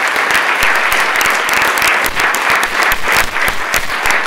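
A room full of legislators applauding: dense, steady clapping from many hands that holds at one level throughout.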